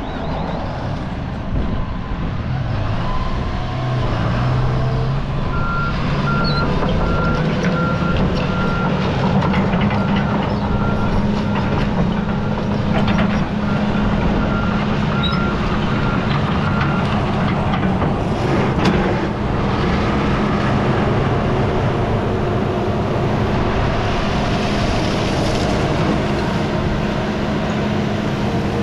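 John Deere 180G excavator's diesel engine running steadily under load, its pitch climbing in the first few seconds as it throttles up. A regular high beeping, typical of a travel alarm, sounds from about five seconds in until a little past the middle.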